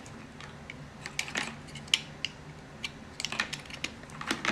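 Small items from a phone box being handled: irregular light clicks and taps with some rustling of cardboard and paper, as the charger, cable and packing are lifted out.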